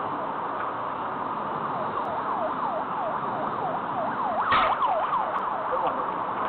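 An emergency-vehicle siren in a fast yelp, its pitch sweeping down over and over about four times a second. A bat cracks against a ball about four and a half seconds in.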